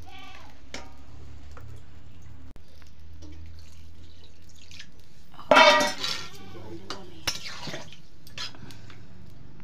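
Steel cookware clanking and clinking, with one loud ringing clang a little past halfway. Water splashes into a steel bowl near the end.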